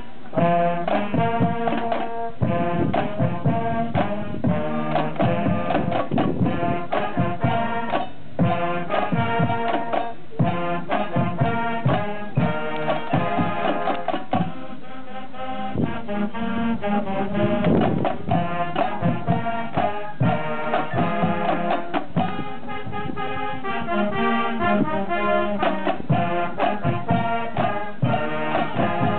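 Marching band playing a piece: a brass section including sousaphones, over percussion that keeps a steady beat.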